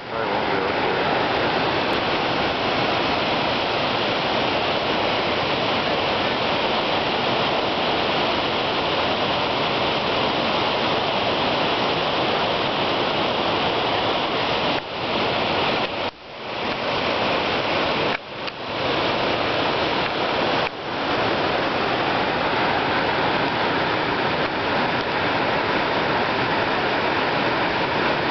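Steady rushing of white water over the rock cascades of the Potomac River at Great Falls, with a few short dips in level about halfway through.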